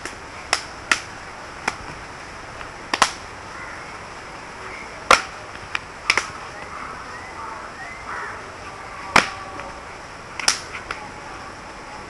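Sharp slaps and snaps from the hands and clothing of a barefoot martial artist performing an unarmed silambam form, about a dozen at irregular intervals, some in quick pairs.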